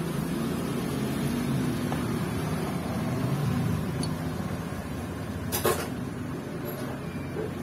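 Steady low rumble of workshop background noise, with one sharp clack of metal parts about five and a half seconds in as the connecting rod is handled on the crankshaft.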